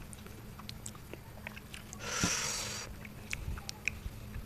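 Faint eating sounds: chewing and small wet mouth clicks as fingers mix rice by hand, with one brief soft hiss about two seconds in.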